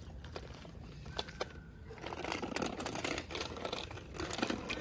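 A small children's bicycle rolling over rough asphalt, a light clicking rattle that grows denser and louder about halfway through.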